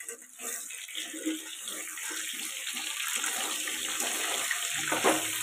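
Potato chunks frying in hot oil in a kadai, a steady sizzle that builds over the first couple of seconds, with a few scrapes of a spatula stirring them in the pan.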